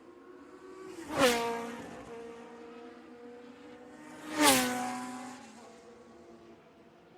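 Formula One cars passing at speed: two pass-bys about three seconds apart. Each is a sudden loud engine note that drops in pitch as the car goes by, then fades away.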